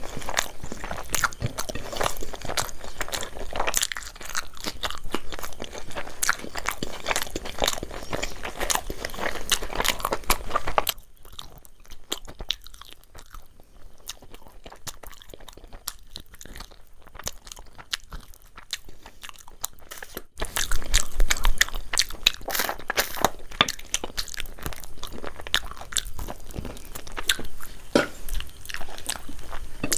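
A person chewing and crunching food close to the microphone, a dense crackle of bites. About eleven seconds in it drops to quieter, softer chewing, and the loud crunching comes back about twenty seconds in.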